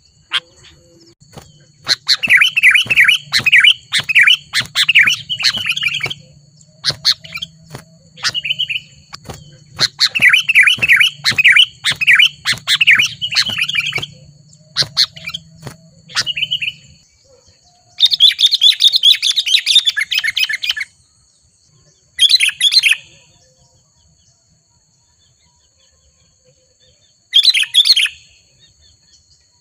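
Sooty-headed bulbuls calling: two long runs of rapid bubbling notes, then several shorter, harsher chattering bursts in the second half, with scattered sharp clicks between.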